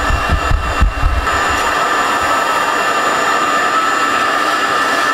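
A 12-gallon ShopVac running steadily with a high whine, sucking dust through its hose into a Dust Deputy cyclone separator. A few low rumbling bumps in the first second and a half.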